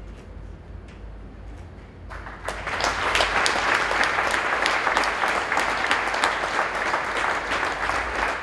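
Audience applauding: a few scattered claps, then full applause from about two seconds in.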